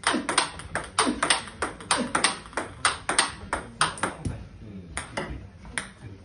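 Table tennis ball being struck by bats and bouncing on the table: a fast, irregular run of sharp clicks that thins out after about four seconds.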